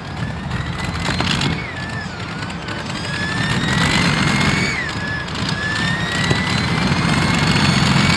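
Modified pulling tractor's engine under power, a high whine climbing steadily in pitch over a heavy low rumble. The pitch drops back twice, about two and five seconds in, then climbs again.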